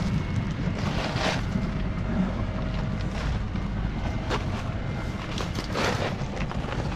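Wind buffeting the microphone as a steady low rumble, with a few brief crunches and rustles of dead leaves and brush underfoot.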